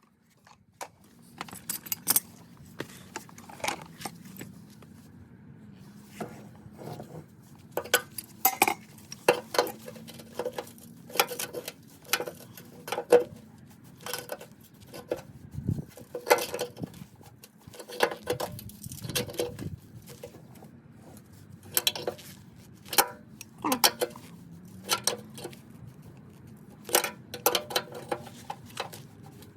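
Irregular metallic taps and clinks of hand tools working on steel, some sharp and loud, over a faint steady hum.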